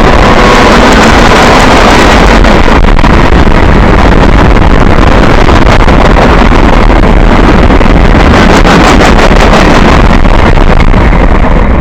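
CSX freight locomotive with a slug passing close by, so loud that the recording is overloaded throughout, with wind buffeting the microphone and its K5LA air horn being quilled.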